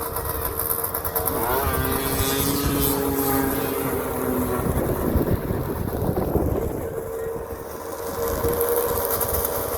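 Snowmobile engines running and revving, one climbing in pitch about a second and a half in, over a steady engine tone.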